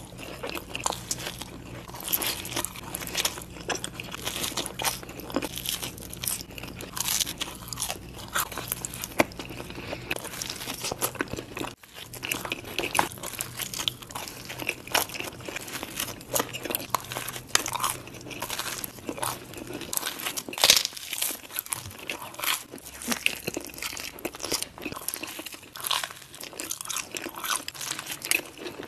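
Close-miked pizza eating: bites crunching into crust and chewing, a steady stream of crackly clicks.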